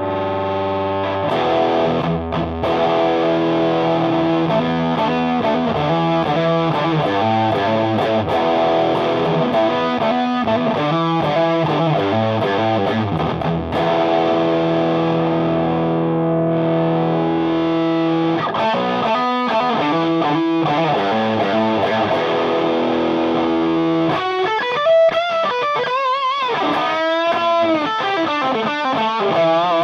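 Electric guitar (PRS S2 Custom 24) overdriven by a Ramble FX Marvel Drive pedal into a Marshall JVM clean channel, playing held distorted chords and riffs. About three quarters of the way through it switches to a lead line with string bends and vibrato.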